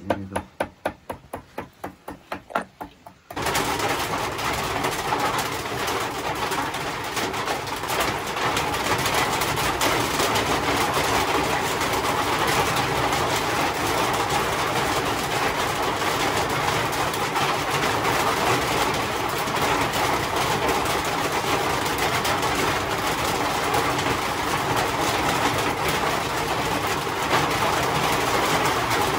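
Steady heavy rain, an even dense hiss that starts suddenly about three seconds in. Before it comes a fast run of quick ticks, several a second.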